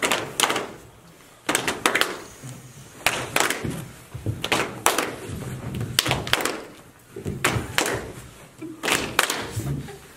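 Thumps and slaps of a dancer's hands, feet and body striking the studio floor, in short irregular clusters about every second and a half.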